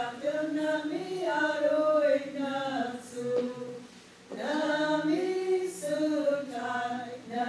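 Small group of mostly women singing together unaccompanied, in long held phrases with a short pause for breath about four seconds in.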